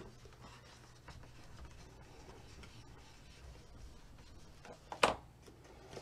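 Faint rubbing and rustling of folded cardstock being pressed together by hand as a glued flap is stuck down, with one sharp tap about five seconds in.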